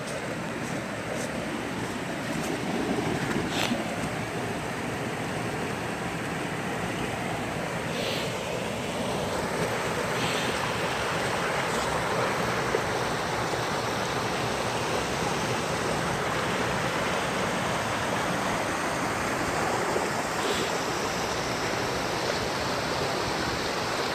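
Floodwater rushing steadily, a continuous churning wash of water, growing a little louder after the first few seconds.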